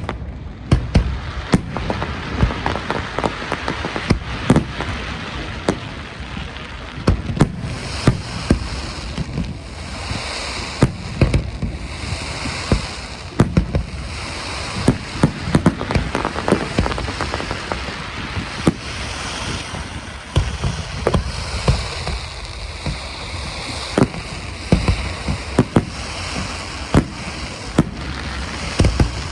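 Fireworks display: a continuous barrage of booming bursts, several a second, over steady crackling.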